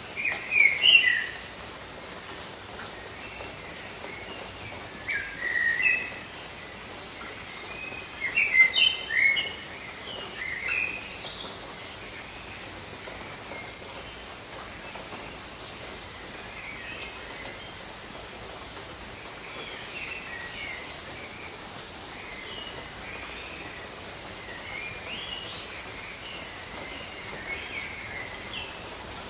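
Steady patter of gentle rain, with a songbird singing short chirping phrases, loudest in three bursts in the first eleven seconds and fainter after.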